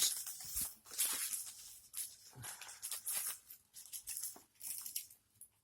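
Packaging being handled while a fireworks box is opened: irregular rustling, scraping and light knocks of cardboard and wrapping.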